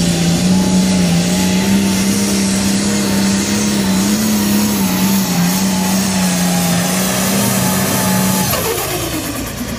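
International pro stock pulling tractor's diesel engine running hard at a steady, high pitch as it drags the weight-transfer sled down the track. About eight and a half seconds in, the engine note drops sharply in pitch as it winds down.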